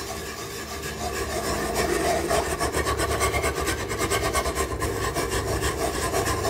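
Wire balloon whisk scraping rhythmically around a cast-iron skillet, the strokes getting louder about a second in, as a cup of chicken broth is whisked into the roux to make gravy.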